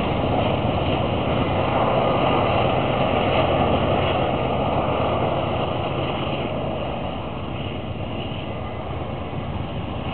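BNSF freight train passing: the diesel locomotives' engines run with a steady low rumble, then the double-stack container cars roll by and the sound eases off somewhat after about halfway.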